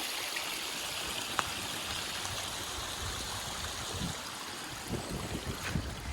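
Rain-swollen runoff stream rushing steadily, swollen by a night of heavy rain. A few soft low thumps come in near the end.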